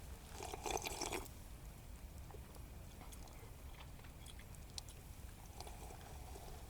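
A person eating meat and noodles, chewing, with a louder burst of eating noise about a second in and a weaker one near the end.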